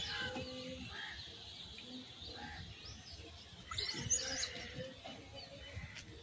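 Small birds chirping with many short, scattered calls. A brief, louder, high-pitched burst comes about four seconds in.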